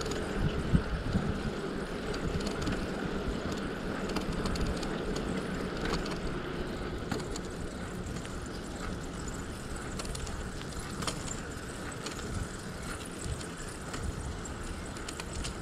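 Riding a bicycle: steady wind and tyre noise on the rider's camera microphone, with scattered light clicks and rattles.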